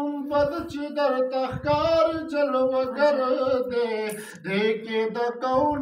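A man singing a Pashto naat in long, melismatic held phrases, his voice rising and falling, with a brief pause for breath about four seconds in.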